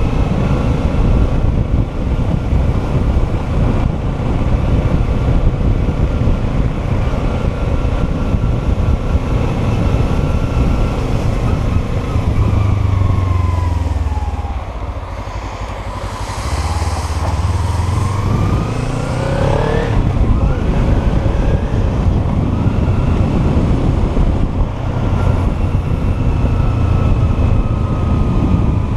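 Kawasaki Ninja 300's parallel-twin engine running as the bike is ridden, over a steady rush of wind and road noise. About halfway through, the engine note drops and quietens as the bike slows, then climbs again as it accelerates away.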